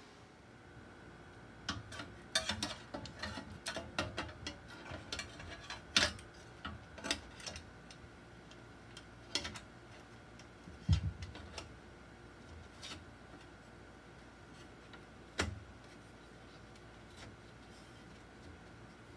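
Small metal parts clicking and clinking as a sprocket and shaft are fitted by hand to an aluminium mounting plate and a nut is threaded on. The clicks are irregular and bunched in the first half, with a heavier knock about eleven seconds in and one more sharp click a few seconds later, over a faint steady hum.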